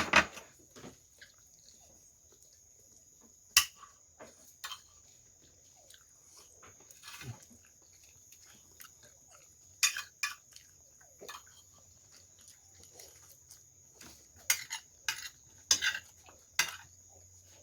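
Close-up eating sounds during a mukbang: scattered sharp clicks and smacks of chewing, with occasional clinks of cutlery on dishes, separated by quiet gaps.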